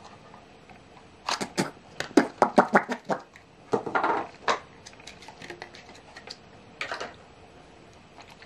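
A quick flurry of sharp clicks and taps starting about a second in and running to about four and a half seconds, then a short cluster near seven seconds.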